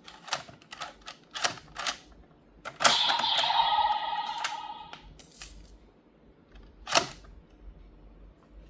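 Sharp clicks and snaps from the plastic parts of a DX transformation-belt toy being handled, about five in the first two seconds and a few more later, the loudest about seven seconds in. Between about three and five seconds in, a steady electronic tone of a couple of seconds sounds from the toy.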